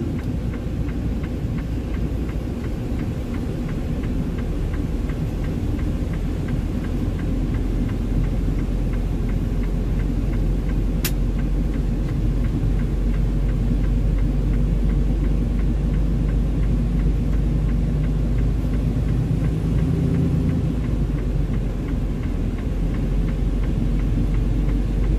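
Freightliner Cascadia semi tractor's diesel engine running steadily at low speed with a low rumble, heard from inside the cab as the bobtail tractor creeps forward. One short click about eleven seconds in.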